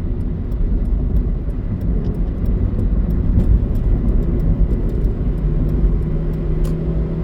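Steady low rumble of road and traffic noise while travelling along a street. A steady engine hum comes in about five and a half seconds in.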